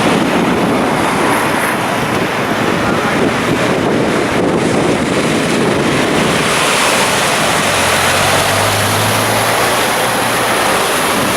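Wind-driven high water in a flooded harbour washing and splashing, steady and loud, with wind buffeting the microphone. A low hum joins briefly about eight seconds in.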